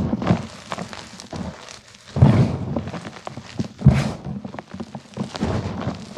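Hands squeezing and crumbling gym chalk powder and broken chalk blocks: soft crunching and squishing with muffled thuds, in several bursts, the loudest a little over two seconds in and again near four seconds.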